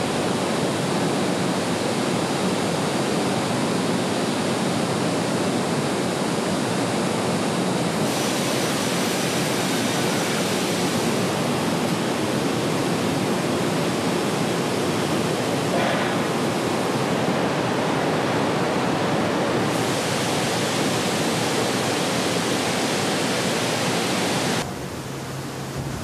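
Hot steel rolling line: a loud, steady rushing hiss. It shifts abruptly about eight seconds in, and near the end it drops quieter with a low hum underneath.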